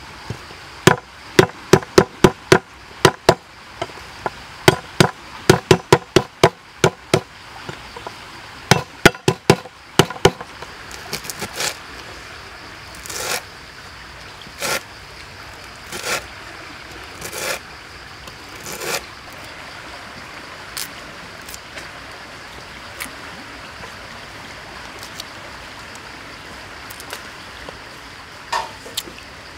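Cleaver chopping lemongrass on a wooden cutting board: sharp knocks in quick runs for the first ten seconds or so, then slower, softer cuts about every second and a half, fading to a steady faint hiss.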